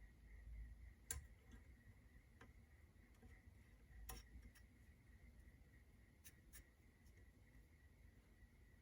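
Near silence, with a few faint, scattered clicks as a fork bushing is handled and fitted onto the fork tube.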